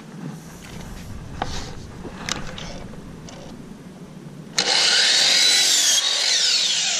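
Light clicks and knocks as a board is set on the saw, then about four and a half seconds in a power miter saw starts suddenly with a loud, high whine and cuts across the wooden board. Near the end the whine falls in pitch as the blade slows.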